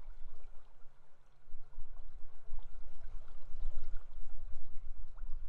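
River ambience: flowing water with a low rumble that rises and falls.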